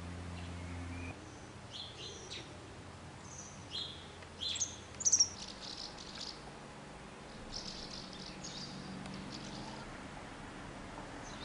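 Small birds chirping and calling in short, scattered high notes, the loudest calls about five seconds in. A low steady hum stops about a second in.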